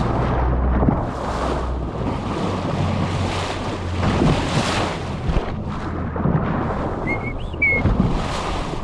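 Wind buffeting the microphone over water rushing past a boat's bow, with a brighter splash about four seconds in as a bow-riding dolphin breaks the surface. A few short, high chirps near the end.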